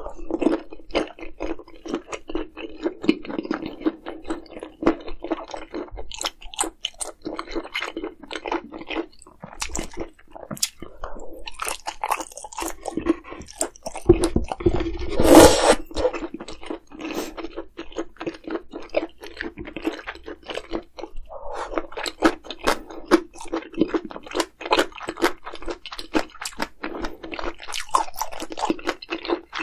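Close-miked chewing, with wet clicks and crunches. There is a louder burst of noise about halfway through.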